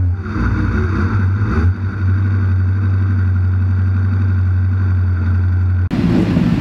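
Sport motorcycle engine idling, heard close up from a camera mounted on the bike: a steady low engine note that wavers briefly near the start and then holds even. Near the end the sound switches abruptly to a noisier mix of several motorcycles idling together on the grid.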